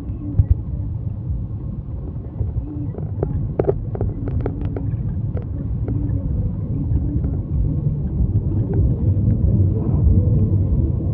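Steady low rumble of a vehicle on the move, engine and road noise heard from inside, with a few light knocks and rattles around four seconds in.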